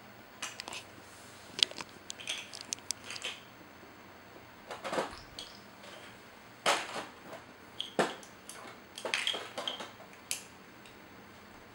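Small plastic toys (blocks, stacking cups and plastic rings) being handled by babies: irregular clicks, clacks and clatters, with a few louder knocks in the second half.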